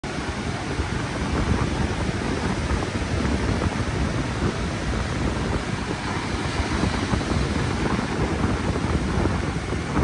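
Rough sea surf breaking and foamy wash rushing up the sand in a continuous roar of noise that swells and eases, with wind buffeting the microphone.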